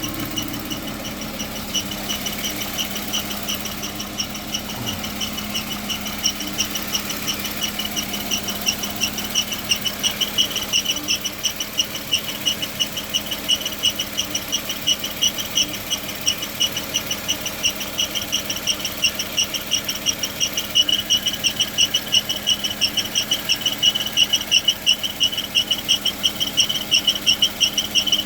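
VW Touareg 7L 3.6 FSI engine running with a loud, rapidly pulsing squeal from the bell housing of its six-speed torque-converter automatic; the squeal grows louder toward the end. The owner suspects a faulty torque converter or something inside the automatic gearbox.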